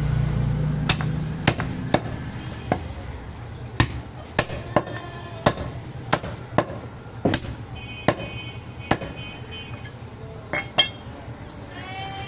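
Heavy butcher's cleaver chopping goat leg meat on a wooden tree-stump chopping block: about fifteen sharp chops at an uneven pace, roughly one every half second, stopping about eleven seconds in.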